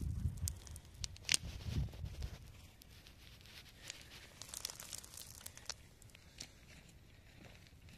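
Dry, stony soil being crumbled in gloved hands and trickling onto rocks: soft crackling with scattered light ticks of grit, and a low rumble in the first two seconds.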